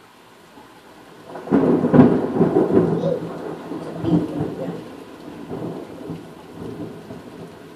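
Thunder: a sudden loud crack about a second and a half in that rolls into a rumble and fades slowly, over the steady hiss of rain.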